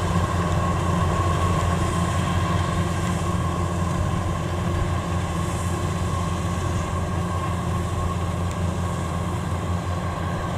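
Kubota DC93 rice combine harvester running steadily under load as it cuts standing rice: a constant diesel engine drone with a steady whine from the threshing and cutting machinery.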